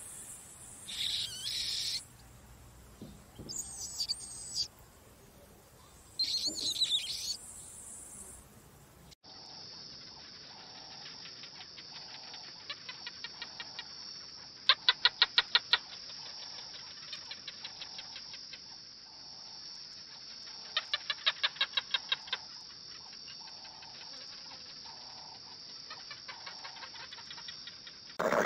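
Bat squeaking: several short, high chirps during the first nine seconds. After a sudden change, a steady high buzz with trains of rapid clicks, about ten a second, loudest twice.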